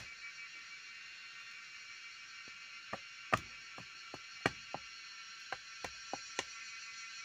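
A series of about ten sharp, irregular knocks, the loudest a little past the middle, over a steady high background hiss.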